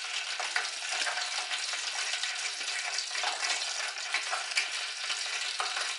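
Hot oil sizzling steadily in a pot as a round of fricassé dough deep-fries in it, with many small crackles.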